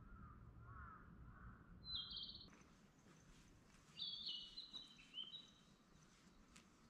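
Faint forest birdsong: crows cawing in the first two seconds, then a small bird's short, high trilled call about two seconds in and a run of high calls stepping down in pitch from about four seconds in.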